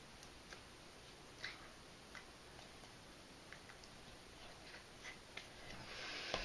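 Faint, scattered small clicks and mouth noises from a person signing, over quiet room tone. A breathy rush of noise swells near the end.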